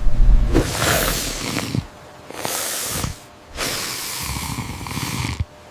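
Loud hissing sound effect in three bursts, the first and longest at the start, then a short one and another long one, with quieter gaps between.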